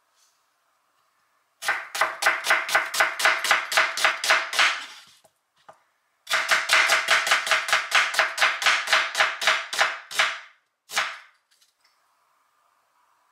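Santoku knife slicing half an onion on a bamboo cutting board, each cut ending in a knock on the wood. The cuts come fast and even, about four or five a second, in two runs with a short pause between, and a single last cut follows shortly after.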